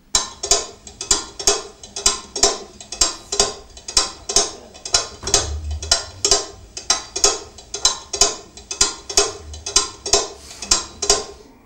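Steady clock tick-tock, about two ticks a second, each tick ringing briefly; it stops near the end.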